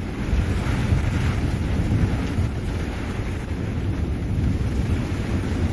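Thunderstorm wind gusting over the microphone as a steady low rumble, with a hiss of rain behind it.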